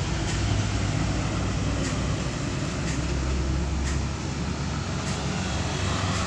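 Street traffic noise with the low engine rumble of a heavy truck passing close by, the rumble easing off about four seconds in.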